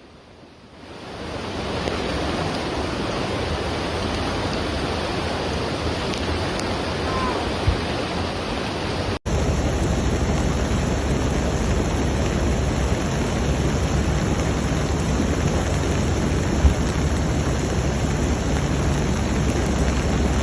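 Steady rushing of floodwater and heavy rain. About nine seconds in it cuts suddenly to a second stretch of the same kind of water noise, a little louder and deeper.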